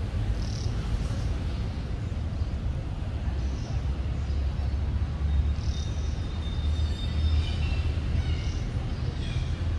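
Outdoor forest ambience: a steady low rumble with faint, short high bird chirps now and then, more of them in the second half.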